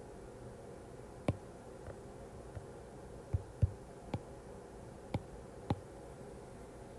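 Stylus tapping on a tablet's glass screen: about seven short, sharp clicks spaced irregularly, over a faint steady hum.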